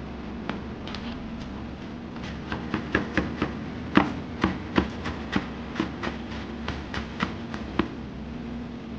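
Kitchen knife chopping fresh dill on a wooden cutting board: a run of sharp knocks about three a second, starting a couple of seconds in and stopping near the end, with a few lighter taps before.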